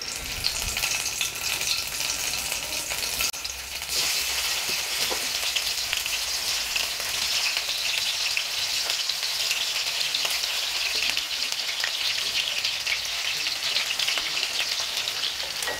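Masala-coated cauliflower florets shallow-frying in hot oil in a kadai: a steady sizzle with fine crackling. It grows louder about four seconds in as more florets go into the oil.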